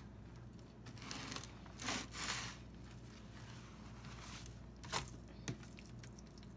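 Paper towel crinkling and rustling as a raw pork loin is turned over on a metal sheet pan, in a few soft swishes, with a light knock about five seconds in.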